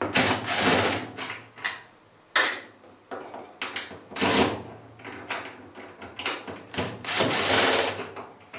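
DeWalt cordless drill-driver running in short bursts as it backs screws out of a dryer's sheet-metal front panel. The main runs come at the start, about four seconds in and about seven seconds in, the last lasting over a second, with small clicks and knocks between.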